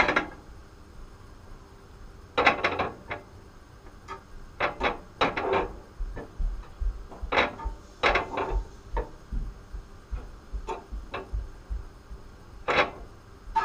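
Irregular knocks, scrapes and clatter of cookware and utensils being handled, in short clusters every second or two with quieter gaps between.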